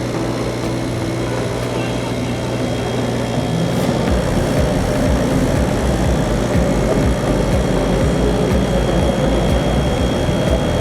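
CNC machine running steadily with a motor hum and a steady high whine; about four seconds in it grows louder and rougher in the low end.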